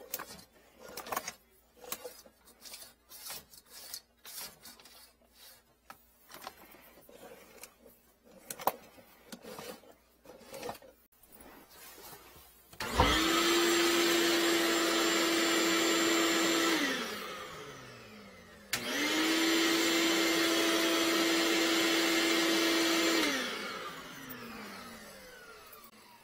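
Scattered small clicks of handling, then an electric blower switched on twice, blowing air into a clogged sink drain pipe to push the blockage through. Each run holds a steady hum and hiss for about four seconds, then falls in pitch as the motor winds down.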